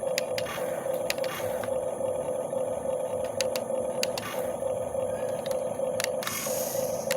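Huina 1535 RC excavator's small electric motors and gearboxes whining steadily as it works, dropping out briefly a few times as the controls change, with scattered light clicks from the gearing.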